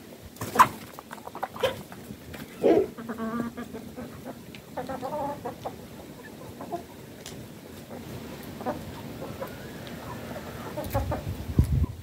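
Free-ranging chickens clucking, with a few short, loud calls in the first three seconds and softer clucks after. A low rumble with a couple of thumps comes near the end.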